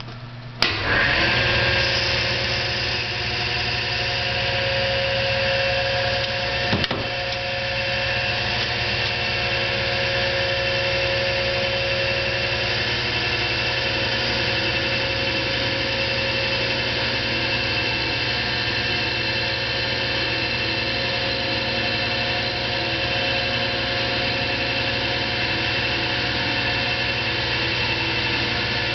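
Hardinge DV-59 turret lathe switching on about half a second in, then running steadily with a motor hum and several held whining tones while it machines a bar. A brief click comes about seven seconds in.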